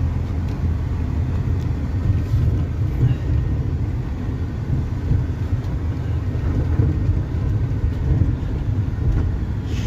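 Cargo van driving along a dirt track, heard from inside the cab: a steady low rumble of engine and tyres.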